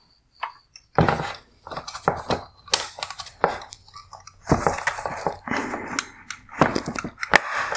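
Hard plastic and metal parts of a Mercedes-Benz CLS bi-xenon headlight being handled and worked loose from the housing: irregular clicks, knocks and short scrapes.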